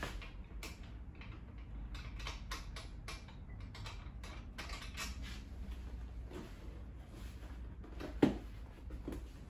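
Irregular small clicks and scrapes of bolts being unscrewed from beneath the seat of a maple wood campaign chair while the chair is handled, with a sharper knock about eight seconds in.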